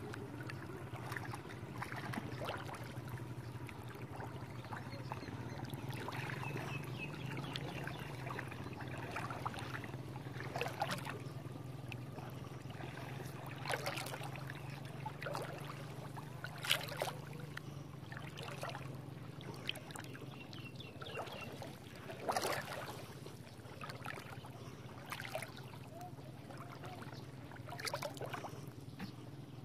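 Water splashing and sloshing at irregular intervals, a few seconds apart, over a steady low hum.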